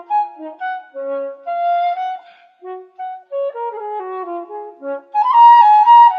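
Background music: an instrumental melody of short notes moving up and down, with a second lower line, louder for about a second near the end.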